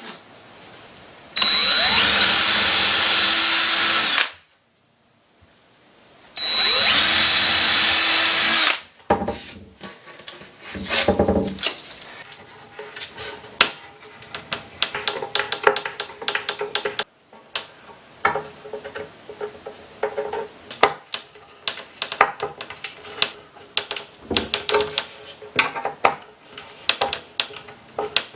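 Power drill boring through a wooden cabinet door in two steady runs of about three and two seconds. Then a long string of small irregular clicks and scrapes as the handle's screws are turned in by hand with a screwdriver.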